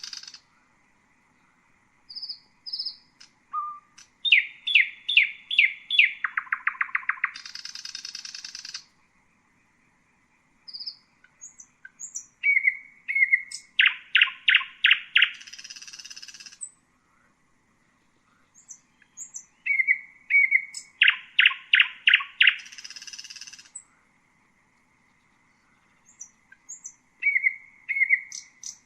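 Common nightingale singing in four phrases of a few seconds each, separated by pauses. The phrases mix short whistled notes, rapid runs of loud repeated notes and harsh buzzy notes.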